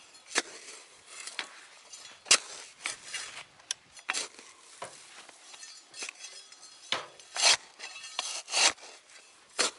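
A plastic rake scraping and dragging through dry grass and soil in uneven, scratchy strokes, a few of them much louder than the rest.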